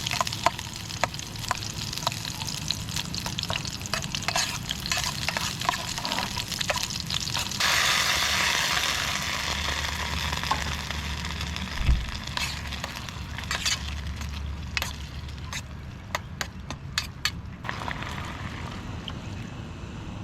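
A steady sizzling hiss shot through with many sharp crackles and pops. It gets louder about eight seconds in, and the crackles come in quick clusters later on.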